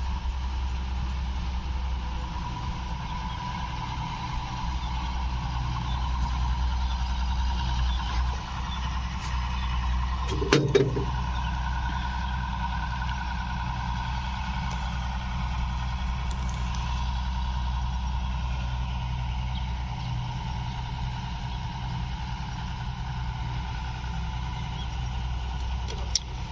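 Large farm machine's engine running steadily, with a constant low hum and a steady higher whine, and a brief clatter of sharp knocks about ten seconds in.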